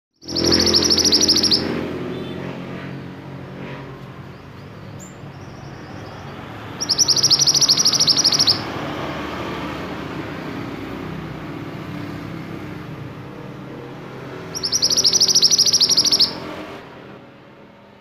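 Male scarlet minivet singing: three high, rapid trills, each about a second and a half long and spaced about seven seconds apart. A steady low rumble runs underneath.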